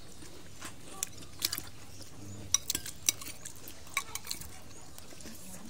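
Cutlery clinking and scraping against a plate in a dozen or so short, scattered clicks, as food is scooped up while eating.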